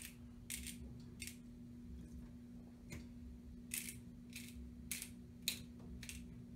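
Hand-twisted grinder grinding pink Himalayan salt crystals: a series of short crunching bursts at uneven intervals as the top is turned back and forth.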